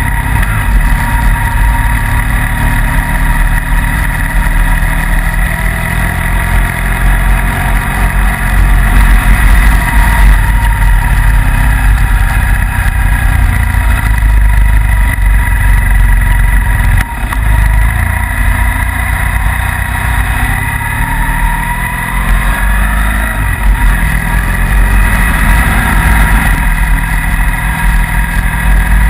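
Motorcycle engine running under load, heard from on board, with wind and road noise. Its pitch glides up and down with the throttle, and the sound dips briefly about halfway through.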